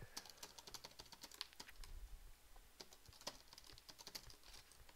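Faint typing on a computer keyboard: an irregular run of many quick keystroke clicks.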